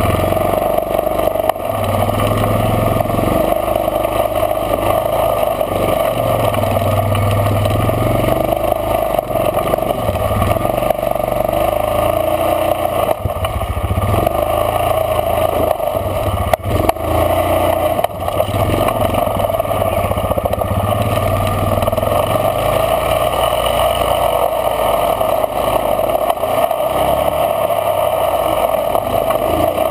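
Off-road vehicle engine running and rising and falling in speed as it crawls over rock, heard close from a camera mounted on the vehicle.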